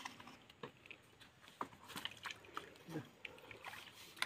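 Faint scattered clicks and taps from handling PVC pipe fittings, with faint voices in the background.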